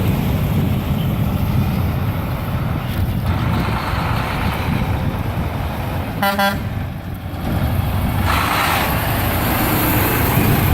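Semi trucks driving past, a steady low engine and tyre rumble. About six seconds in, one short toot of a truck horn.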